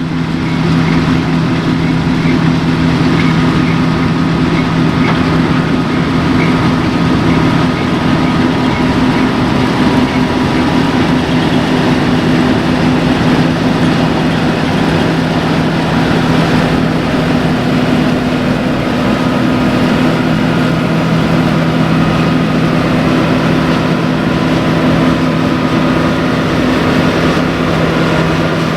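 Large diesel farm machinery running steadily under load, a constant engine drone with a steady low hum.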